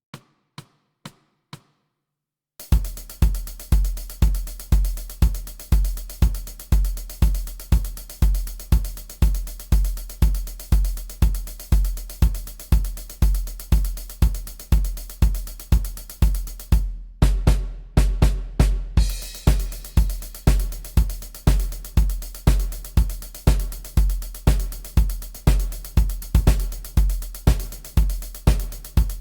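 MIDI drum kit beat: four quiet count-in clicks, then a steady rock beat with a heavy bass drum, about two hits a second, and snare. It breaks into a short fill about two-thirds of the way in before the steady beat resumes.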